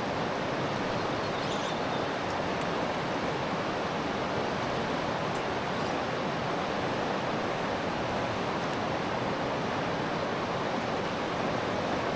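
River water rushing steadily, an even wash of flowing water.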